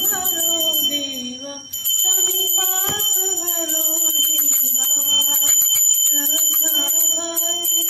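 A small brass puja hand bell rung rapidly and continuously, pausing briefly about a second and a half in, while voices sing a drawn-out devotional aarti tune.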